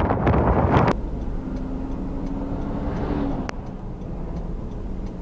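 Strong wind buffeting the microphone, cutting off abruptly about a second in. Then a quieter steady low rumble follows, with a short hum and a single click.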